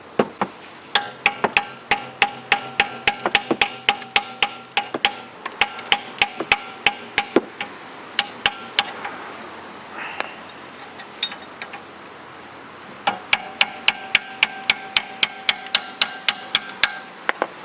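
Hammer striking a 15mm wrench on a seized, corroded nut to break it loose: a fast run of ringing metallic blows, about three or four a second. The blows pause for about four seconds partway through, then start again.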